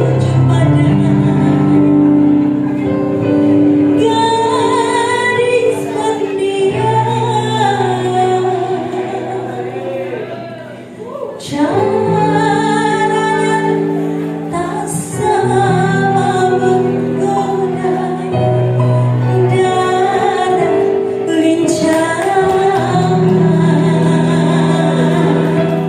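Women's choir singing a sustained, slow piece over steady low held notes, with a brief dip between phrases about eleven seconds in.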